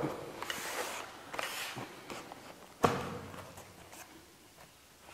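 Black foam gimbal carry case being opened by hand: the lid rubs and scrapes against the base twice, with a sharp knock about three seconds in, then lighter handling sounds.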